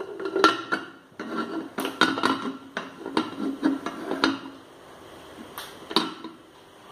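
Metal pressure cooker knocking and scraping in the frying pan it sits in as it is shifted into place by its handle: a run of uneven clanks with a little ringing, thinning out after about four seconds, then two more knocks near the end.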